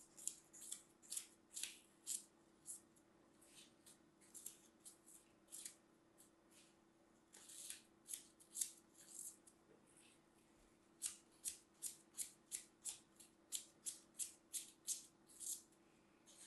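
Dry green floral foam being cut into small pieces with a thin blade, making short, crisp crunches. They come irregularly at first, then in a quick run of about three a second through the second half, over a faint steady hum.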